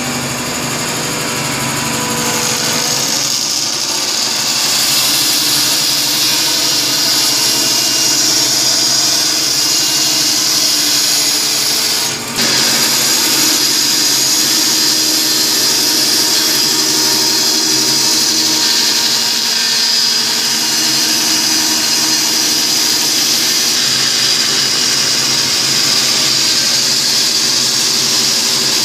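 Shop Fox W1729 band saw running and cutting a yellow cedar plank along a paddle outline, a steady high-pitched whine of blade through wood. The sound dips briefly about twelve seconds in.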